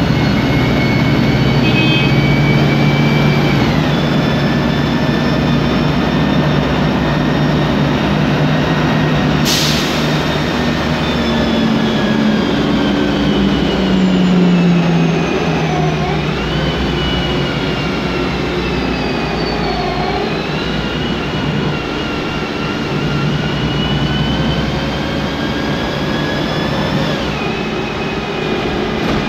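Cabin sound of a 2008 MAN Lion's Classic city bus under way: its Voith DIWA 864.3 automatic gearbox makes a noisy whine of several tones that rise and fall with road speed, over the low hum of its MAN E2876 CNG engine. A brief sharp burst of noise comes about nine and a half seconds in.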